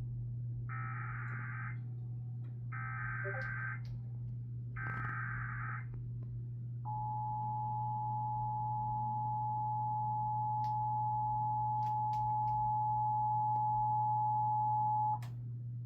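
Emergency Alert System SAME header: three one-second bursts of warbling data tones, then the two-tone EAS attention signal (853 and 960 Hz) held for about eight seconds before cutting off abruptly.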